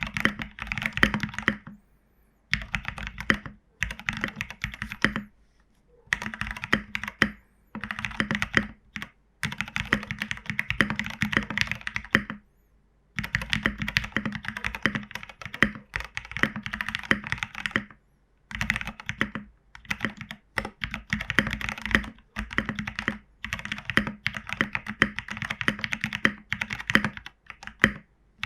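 Typing on a mechanical keyboard with broken-in, lubed and filmed Cherry Hyperglide Black linear switches and MT3 keycaps: fast runs of keystrokes in bursts of a few seconds, broken by short pauses.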